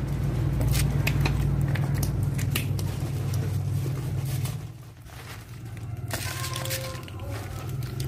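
Knife slicing a vegetable by hand, the blade giving sharp clicks, over a steady low rumble that drops away about five seconds in and comes back a second later.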